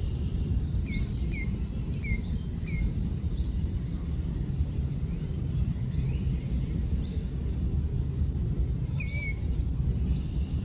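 A bird calling: four short, clear calls about half a second apart, then one more near the end, over a steady low rumble.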